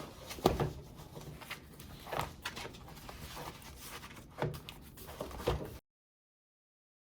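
A few separate knocks and thumps over a faint low rumble, the loudest about half a second in. The sound cuts off to dead silence near the end.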